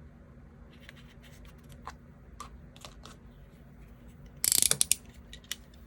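Washi (masking) tape being handled, with scattered faint clicks, then a short loud crackling rip about four and a half seconds in as a length is pulled off the roll, followed by a couple of single clicks.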